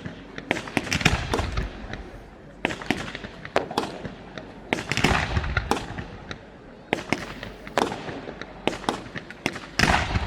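Aerial fireworks display: shells bursting in a rapid, irregular string of sharp bangs, bunching into dense volleys about a second in and again around five seconds.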